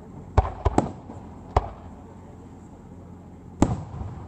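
Aerial firework shells bursting: a quick run of three bangs about half a second in, a single bang a little after one and a half seconds, and another near the end.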